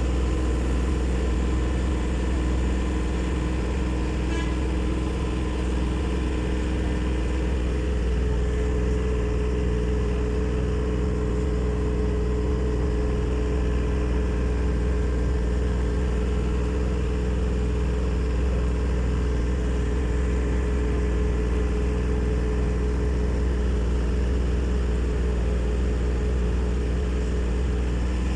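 A canal tour boat's motor running steadily, a low, even hum heard from on board.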